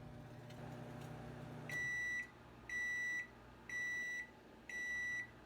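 Microwave oven running with a low hum that stops just under two seconds in, then four beeps about a second apart, the microwave signalling that the cooking time is done.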